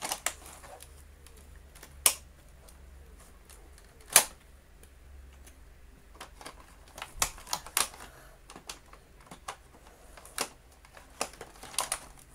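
Sharp plastic clicks and knocks as a Dyson DC50's brushroll housing is pushed and clipped onto the ball body, the clicks coming singly a couple of seconds apart. The loudest comes about four seconds in, with a quick run of several a few seconds later and a few more near the end.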